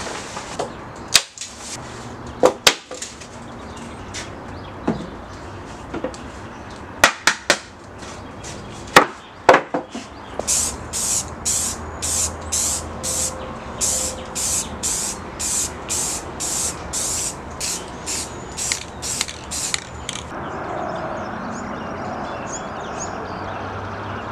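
Sharp knocks and paper handling as kraft paper is spread over a workbench. Then an aerosol spray-paint can sprays in short hissing bursts, about two a second, for some ten seconds. The bursts give way to steady outdoor ambience with faint bird calls near the end.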